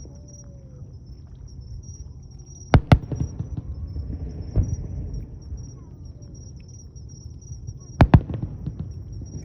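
Aerial fireworks shells bursting: two sharp bangs in quick succession about three seconds in, another about a second and a half later, and two more close together near the end, each trailing off in a rumble and crackle.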